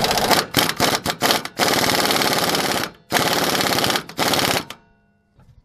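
Impact wrench hammering an old lug nut down a new wheel stud, drawing the stud into the hub. It runs in a few short bursts, then two longer runs of over a second each, and stops near the end.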